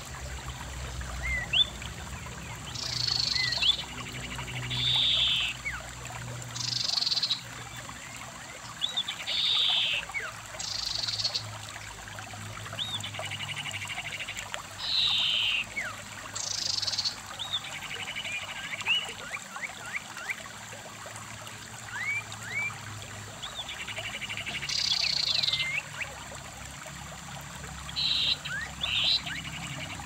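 Shallow stream running over rocks, with loud short buzzy animal calls repeating every couple of seconds and many quick thin rising bird chirps between them.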